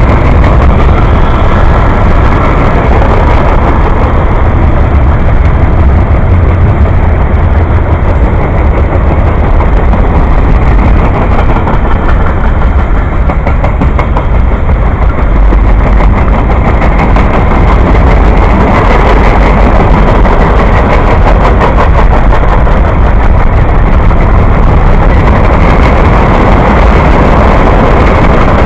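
Freight train of covered hopper cars rolling past close by: a loud, steady rumble of steel wheels on rail, with stretches of rapid clicking as wheels pass over the rail joints.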